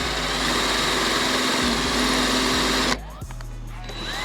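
Electric drill boring through the sheet-steel door of a 1964 Chevrolet Impala, running hard under load and stopping abruptly about three seconds in. Near the end a quieter whine starts and rises in pitch.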